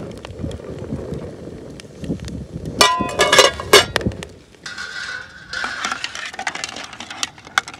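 Eggs boiling in water in an aluminium pan over a wood fire: bubbling, with light clinks and knocks of the eggs against each other and the pan. A brief louder pitched sound comes about three seconds in.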